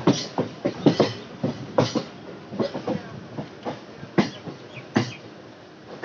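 EMU local train's wheels clattering over rail joints and points, a running rumble broken by irregular sharp clacks, heard from the open doorway. The clacks come thickest in the first couple of seconds and thin out near the end.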